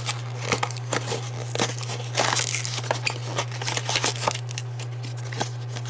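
Packaging of a D&D Miniatures booster pack being torn open and rummaged through: crinkling, tearing and rustling with many small clicks, over a steady low hum.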